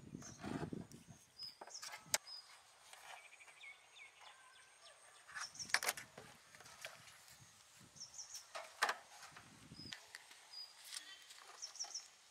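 A knife cutting up skinned rabbit on a metal tray, giving a few sharp knocks and clicks of the blade against the tray between quieter handling sounds. Small birds chirp faintly now and then.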